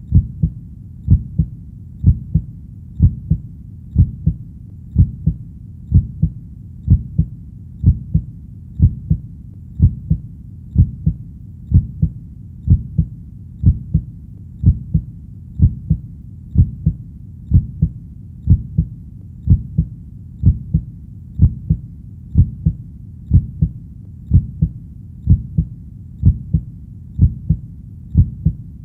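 Heartbeat sound: a steady, low double thump (lub-dub) repeating about once a second over a faint steady hum.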